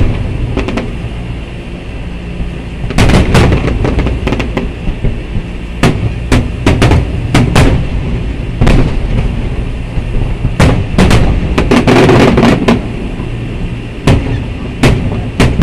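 Aerial firework shells bursting in rapid clusters of sharp bangs over a steady low rumble. The barrage eases briefly about a second in and again near the end before the bangs pick up once more.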